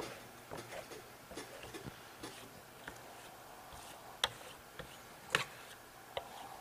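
Steel trowel spreading wax over Venetian plaster: quiet scraping strokes with scattered ticks of the blade on the wall, the sharpest three coming about four, five and six seconds in.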